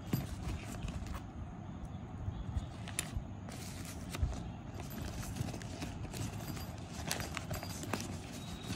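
Handling noise from unpacking a hair clipper kit: a fabric pouch, a plastic bag and a pair of scissors being picked up and set down, with rustling and scattered light knocks and clicks.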